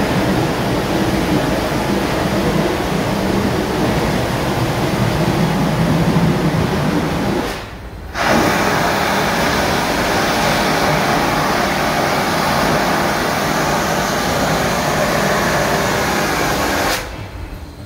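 Oil-fired steam locomotive working hard, its exhaust chugging under a steady rush of noise, heard from the car right behind the tender. In the second half a brighter steam hiss takes over as steam blows off the engine's side; the sound drops away briefly about eight seconds in and again near the end.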